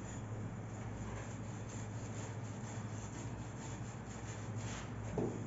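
Wire scrubber pad rubbing back and forth over a chrome-plated wall tap, a steady scratchy scrubbing, with a low steady hum underneath. There is a light knock near the end.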